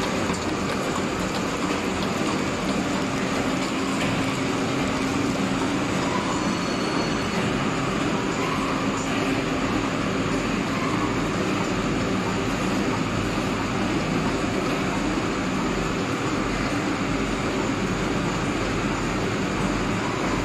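Oil sachet packing machine running continuously, a steady mechanical noise that holds an even level with no clear beat.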